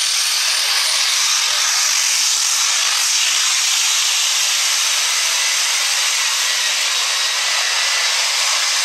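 Super stock diesel 4x4 pickup engine at full throttle pulling a sled: a loud, steady, high-pitched rushing din that holds level without letting up.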